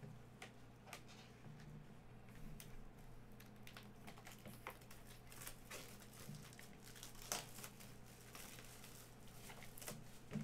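Hands handling plastic and paper packaging on a table: faint, irregular clicks and crinkles. The loudest click comes about seven seconds in.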